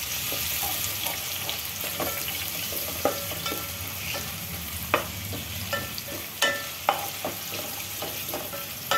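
Sliced onion sizzling as it fries in oil in a metal pot, stirred and scraped with a spatula. Scattered sharp knocks of the spatula against the pot ring briefly, the loudest about five, six and a half and seven seconds in.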